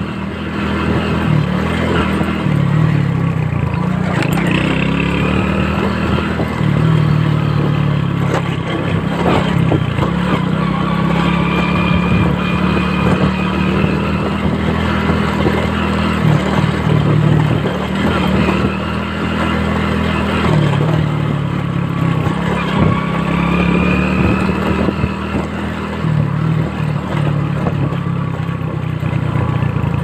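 Small motorcycle engine running under way, heard from the rider's seat, its note shifting up and down every few seconds as the throttle changes.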